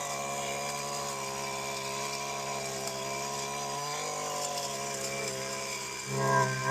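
STIHL FC 56 C edger's small two-stroke engine running at a steady speed, growing louder and rougher about six seconds in. It is being test-run after a repair of its full-throttle problem and runs smoothly.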